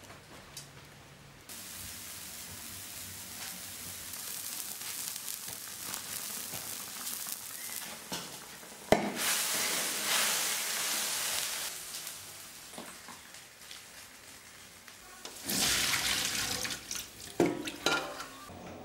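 Water hissing and sizzling in a hot wok set into a wood-fired stove, with steam rising. A sharp knock about nine seconds in is followed by louder hissing, which swells again later, with a few knocks of a bowl against the wok near the end.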